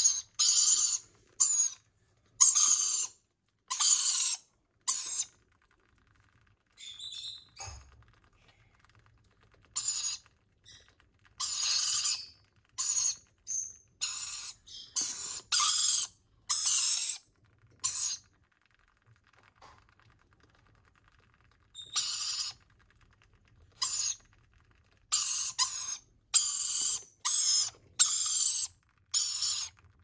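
Baby rainbow lorikeets giving harsh, rasping food-begging calls, short calls of under a second in quick runs, broken by a few pauses of several seconds.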